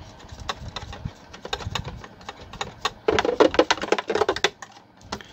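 Small clicks and taps of a screw and a metal-and-plastic fabric guide being handled and set against a sewing machine's bed, busier and louder for a second or so about three seconds in.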